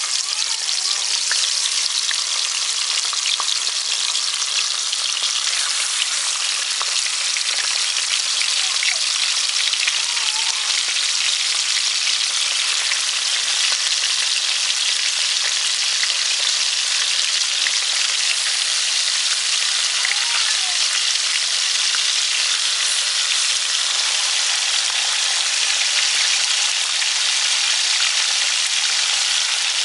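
Whole marinated fish frying in very hot oil in a pot: a steady sizzle with fine crackling.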